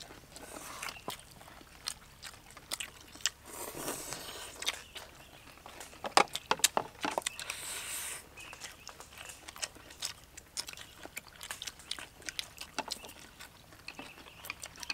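People eating: chewing and crunching food, with many short clicks and taps of chopsticks against porcelain plates.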